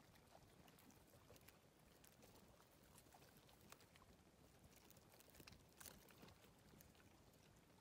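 Near silence: faint outdoor background with a few faint, short clicks.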